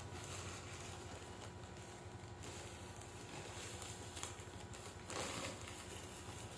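Faint rustling and handling noise as a skein of yarn is taken out of its packaging, with one soft click about four seconds in.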